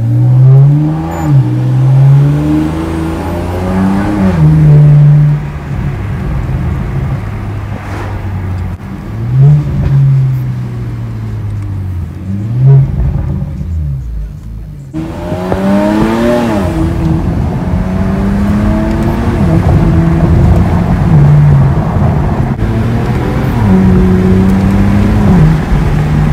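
A car engine, heard from inside the cabin, accelerating hard through the gears: its pitch climbs, drops back at each shift, then climbs again, several times over, with steady road noise underneath.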